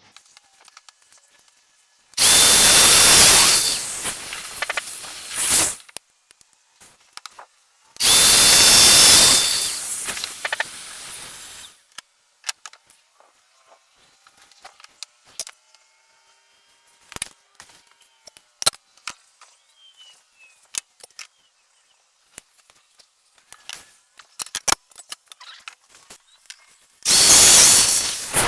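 Festool Domino joiner cutting mortises, running in three separate bursts of a few seconds each: the motor spins up with a steady whine, cuts, then drops in level before it stops. Light clicks and knocks of handling the tool and workpiece fall between the bursts.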